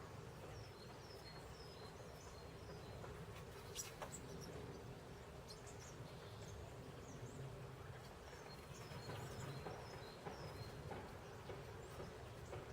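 Small songbirds calling faintly: runs of short, high, evenly spaced notes, one run in the first few seconds and another near the end, over a low steady background rumble. A single sharp click about four seconds in.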